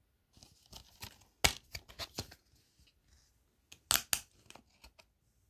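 Plastic DVD keep case handled and opened: a run of sharp clicks and crackles, loudest about a second and a half in and again about four seconds in as the case comes open.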